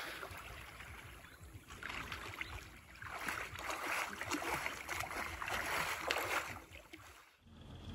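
Water lapping and splashing close by, swelling and fading several times, with a short drop-out near the end.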